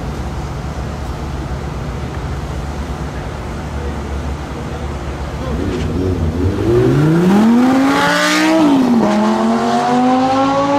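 Lamborghini Gallardo's V10 idling at a standstill, then accelerating hard away from the line about five seconds in. The pitch climbs steeply, drops at an upshift about nine seconds in, and climbs again.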